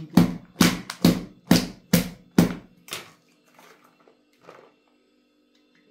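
A quick run of about eight solid thumps, two to three a second, then a couple of fainter knocks: hot peppers being pushed and packed down into a plastic pickling jar.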